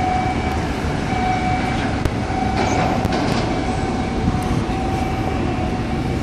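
Steady low rumble of machinery with a faint high hum that breaks off and comes back every second or so.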